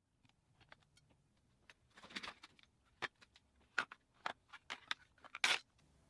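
Slime being squeezed and poked by hand: an uneven string of sticky clicks and pops, with short crackling stretches about two seconds in and again near the end.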